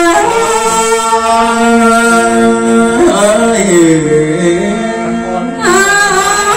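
Tai (Thái) folk singing into a microphone: a voice holds long, drawn-out notes, bending down and back up in pitch about three seconds in.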